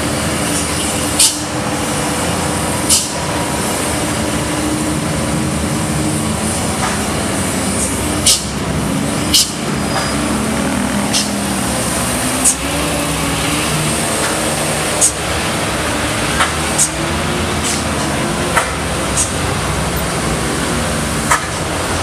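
Road traffic through a steep hairpin bend: engines of cars and a loaded light truck running as they climb through the turn. Brief sharp ticks come every second or two.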